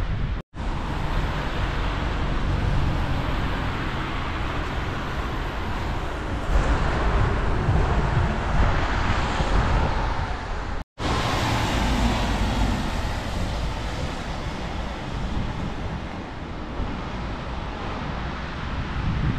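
Steady vehicle noise, heaviest in the low rumble, with wind on the microphone. It is cut off abruptly twice, about half a second in and about eleven seconds in.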